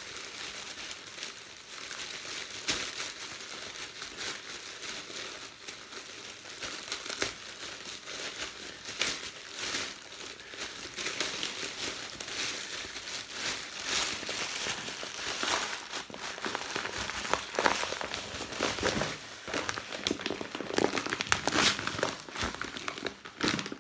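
Thin plastic carrier bag crinkling and rustling continuously as it is opened by hand and a sack of bird seed is pulled out of it, with sharp crackles that grow louder in the second half.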